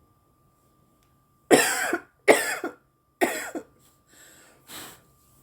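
A woman coughing from cannabis joint smoke: three loud coughs about a second apart, starting about one and a half seconds in, then two quieter breaths near the end.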